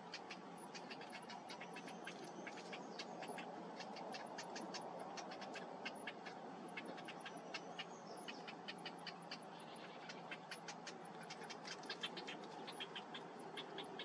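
Cinnamon bittern chicks giving rapid, high-pitched ticking begging calls, several a second, as they are fed at the nest, over a steady background noise.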